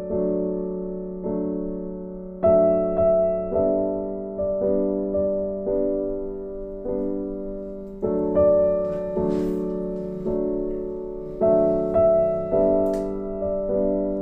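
Background piano music: gentle chords struck about once a second, each fading before the next.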